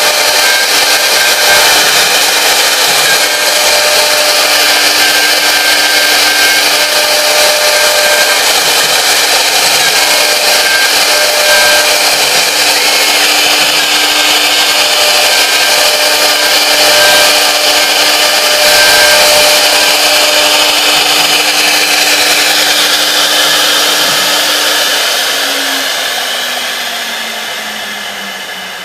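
Three-spindle CNC wood router carving a wood panel: the spindle runs with a steady whine over the hiss of the bit cutting the board. Near the end the spindle winds down, its pitch and loudness falling as the job finishes.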